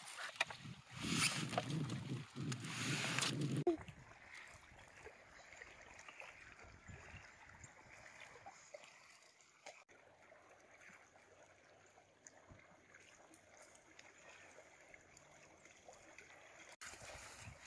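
Small waves lapping faintly and unevenly against a rocky lakeshore. It opens with a loud rushing noise for about three seconds that cuts off abruptly.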